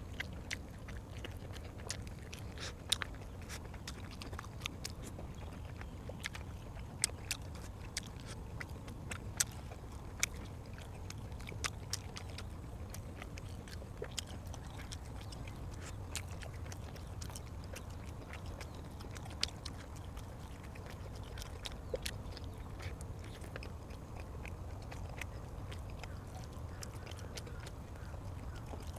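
A person eating: chewing with irregular wet mouth clicks and smacks, thicker in the first half, over a steady low hum.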